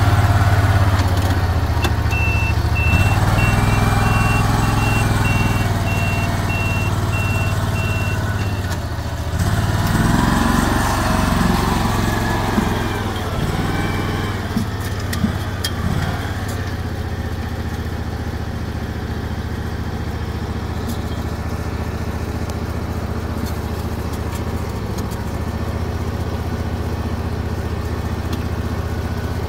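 An engine runs steadily throughout. From about two seconds in to about eight seconds, a series of short, evenly spaced high beeps sounds over it.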